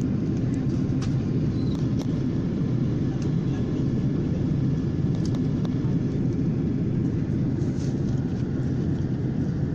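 Steady low rumble of an airliner in flight, heard from inside the cabin, with a few faint clicks.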